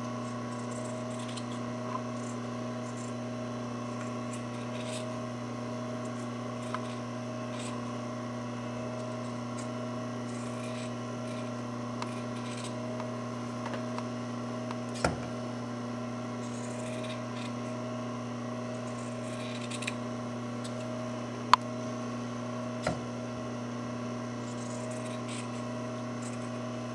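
Scissors snipping through a fabric seam allowance, trimming it in half: faint scattered cuts, with a few sharper clicks near the middle and later on, over a steady electrical hum.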